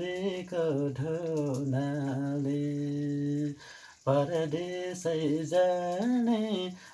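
A man singing a Nepali song solo, with long held notes and a brief pause for breath a little past halfway.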